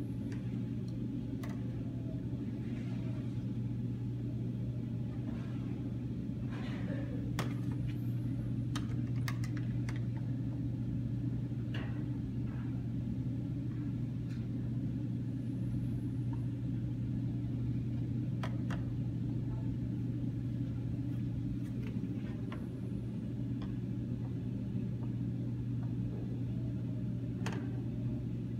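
Light, scattered clicks and knocks of plastic toy kitchen bowls and pieces being handled, over a steady low hum.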